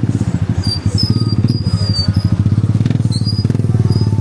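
A small engine running close by, with a steady, rapid, even putter. A thin high-pitched squeal rises over it about a second in and fades after a second or so.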